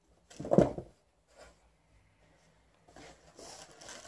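Cardboard box and toy packaging being handled and rustled as a dog noses into the box, with one brief loud bump about half a second in and a longer stretch of rustling near the end.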